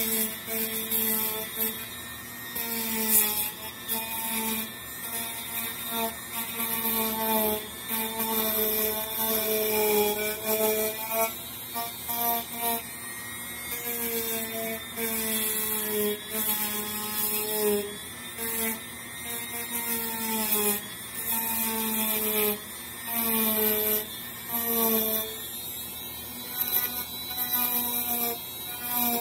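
Dremel rotary tool with a wheel bit carving foam insulation board. The motor hum wavers and dips in pitch in repeated passes of a second or two as the bit is pushed into the foam, with a scratchy rasp of foam being torn away.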